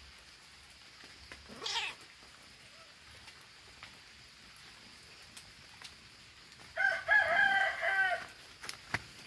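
Domestic cat giving a long, wavering yowl at a snake about seven seconds in, with a shorter sweeping cry near two seconds in and a few sharp taps near the end.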